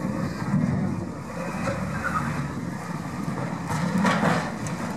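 Volvo wheel loader's diesel engine running steadily at work, with a brief noisy burst about four seconds in.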